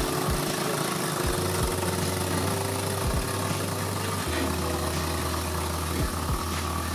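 Steady running rumble of a moving narrow-gauge train, with short knocks, several in close pairs, as the wheels pass over rail joints.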